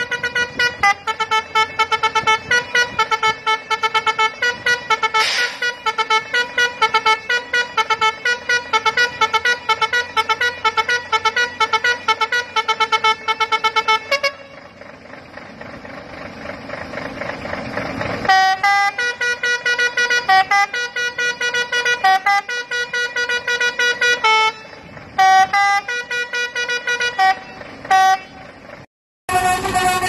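Basuri (telolet) musical horn on a Scania truck playing a fast tune, note after note, for about fourteen seconds. After a break of about four seconds filled with a rising hiss, the horn takes up the tune again in shorter phrases with brief gaps.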